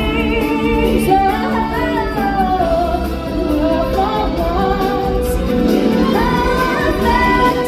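Stage-show music: a woman's singing voice with a choir over backing music, holding long notes with vibrato.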